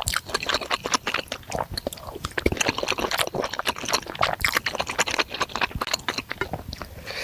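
Close-miked ASMR eating sounds: spicy bakso meatballs being chewed, with a dense run of wet mouth clicks and smacks.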